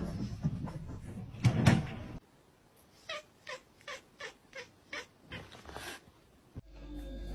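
A loud knock about one and a half seconds in, then a cat giving a quick run of about ten short meows.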